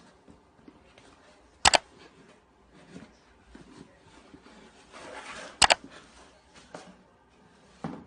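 Two sharp double clicks or knocks about four seconds apart, over faint room noise.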